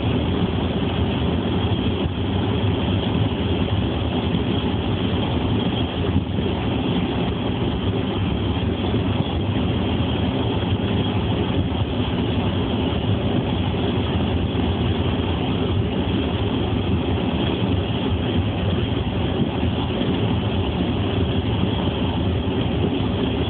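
Steady low rumble of a car being driven: engine and tyre noise heard from inside the cabin, even and unchanging.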